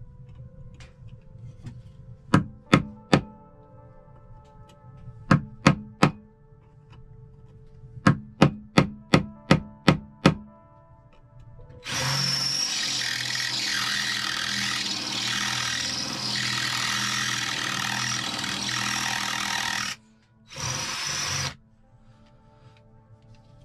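A series of sharp knocks in quick groups, three, three, then eight in a row. Then a cordless drill boring into a flat metal bar, running steadily for about eight seconds, stopping, and running again for about a second.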